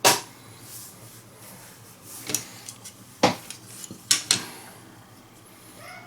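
Sharp clicks and knocks of hard plastic, about five scattered ones with the loudest right at the start, as the pieces of an opened TV remote control are handled and set down.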